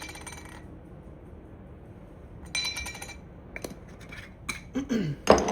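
Glass spice jars clinking and rattling as spices are shaken out, twice, followed by a few sharp clicks and a louder knock near the end as a jar is handled and set down.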